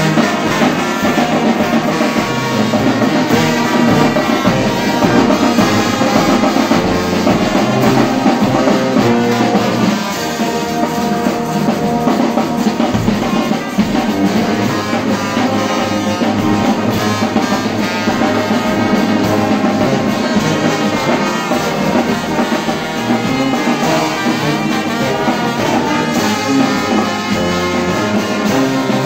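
Brass band playing a hymn tune: sousaphones, euphoniums and trumpets over bass drum and cymbals, a little softer after about ten seconds.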